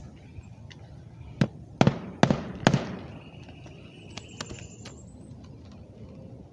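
Four sharp knocks in quick succession, about half a second apart, followed by a faint steady high-pitched whine lasting a couple of seconds.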